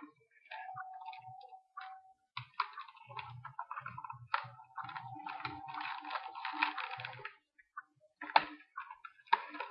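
Hard plastic blister packaging of a fingerboard crackling and clicking in irregular bursts as it is pried and pulled open, with a faint steady tone underneath at times.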